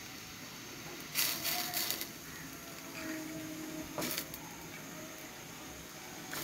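Jaggery lumps being dropped by hand into an aluminium pan of rice flakes soaking in water: a quick run of sharp knocks and splashes about a second in, and another single knock around four seconds.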